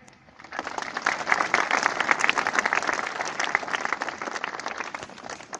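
A large audience applauding: many hands clapping together, starting about half a second in and tapering off near the end.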